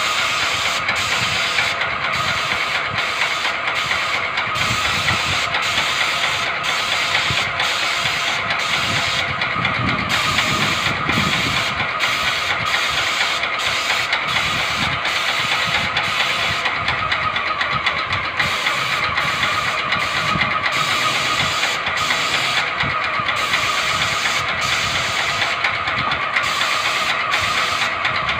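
Graco airless paint sprayer running while the gun sprays: a steady, loud hiss and motor noise that pulses about twice a second.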